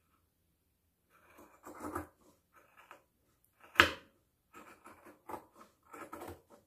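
Scissors cutting through layered bag fabric: irregular short snips and rustling of the cloth, with one sharp, louder click about four seconds in.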